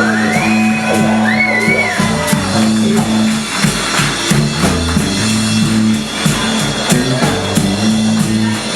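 Live band playing old-school American roots music, with held low notes underneath and gliding high notes in the first couple of seconds.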